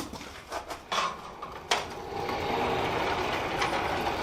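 A few light metal clicks as the workpiece is handled, then from about two seconds in a steady running noise from the forge.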